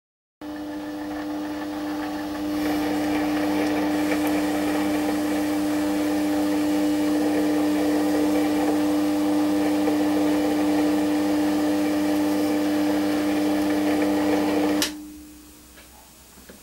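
GMD 400 mini metal lathe running under power with the lead screw engaged, feeding the threading tool along the thread: a steady mechanical whine that starts suddenly, grows louder a couple of seconds in, then cuts off abruptly near the end.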